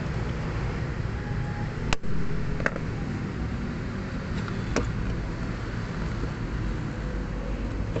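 Hand tools clicking against the metal fuel filter bracket and its bolts under a Nissan NV350's seat: three sharp metallic clicks, the loudest about two seconds in, over a steady low hum.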